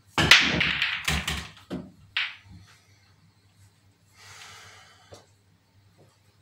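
A break shot on a 6 ft pool table: the cue strikes the cue ball, which smashes into the rack, setting off a burst of clacking balls lasting about a second and a half, then a couple of separate ball knocks as the balls spread.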